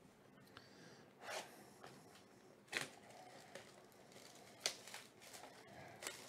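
Cellophane shrink-wrap being torn and peeled off a sealed baseball card hobby box: faint crinkling and tearing in a few short, sharp bursts.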